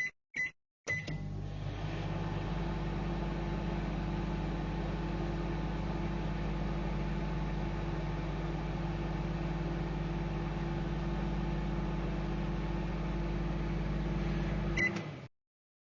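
Microwave oven: two short high beeps, then it starts running with a steady electrical hum for about fourteen seconds. Near the end there is one more short beep or click and the hum cuts off suddenly.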